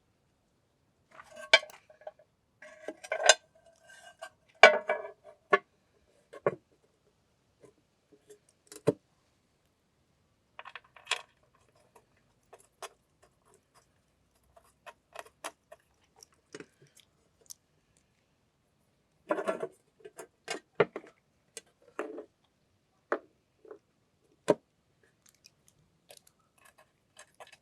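Metal clinking and clattering as bolts and an engine cover are handled and fitted onto an outboard's block: scattered sharp clicks, with clusters of rattling near the start, about eleven seconds in, and again around twenty seconds in.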